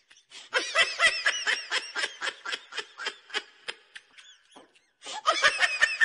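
A person's high-pitched laughter in rapid bursts, about four or five a second, breaking off about four seconds in and starting again a second later.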